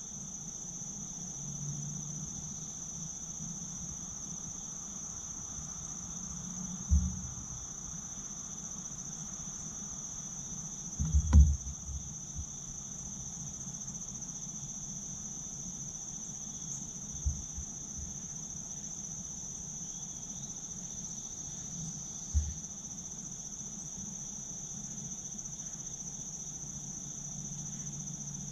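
Steady high-pitched insect chorus, with four dull low thumps spread through it, the loudest about eleven seconds in.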